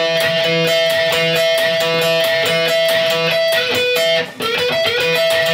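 Les Paul Studio electric guitar playing a repeated blues-rock bend cliché: a full bend at the 14th fret rising into pitch, answered by quick picked notes at the 12th fret, over and over in an even rhythm. The playing breaks off briefly about four seconds in, then starts again with the bend.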